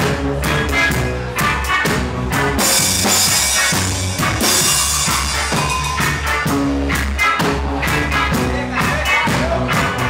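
Live reggae band playing, the drum kit close and prominent.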